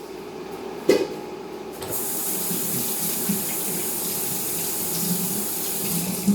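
A knock about a second in, then a kitchen faucet runs in a steady stream as hands are washed under it. The water stops shortly before a click near the end.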